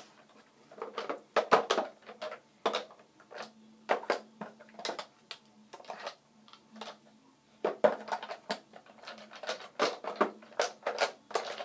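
Glass nail polish bottles clinking and clattering against one another as a hand rummages through a full container: an irregular run of sharp clicks, with a pause of about two seconds midway.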